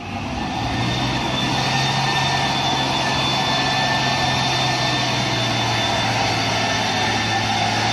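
Mitsubishi Fuso tanker truck's diesel engine running steadily with a low hum as the truck drives through mud. The sound fades in over the first second.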